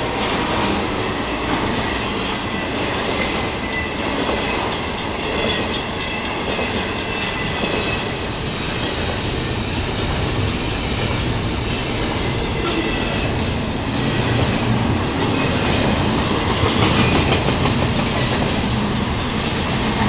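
Intermodal freight cars (trailers on flatcars and double-stack container well cars) rolling past on the rails, a steady rumble with wheels clacking over the track, growing somewhat louder in the last few seconds.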